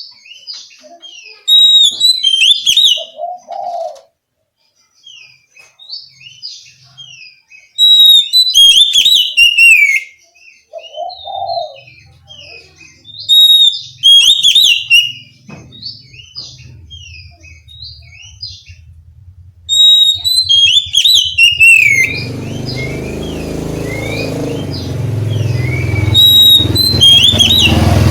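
Oriental magpie-robin singing loud, varied phrases of sweet whistles and rapid chatter, in bursts of a few seconds with short pauses between. Near the end a steady low rumble comes in under the song.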